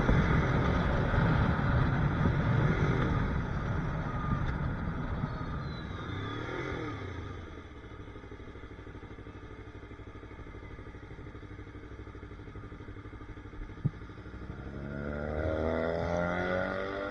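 Yamaha YZF-R3 parallel-twin engine with wind rush as the motorcycle slows from speed, the noise dying down to a low, steady engine sound by about halfway. A single sharp click comes about 14 s in, and near the end an engine note rises and then falls away.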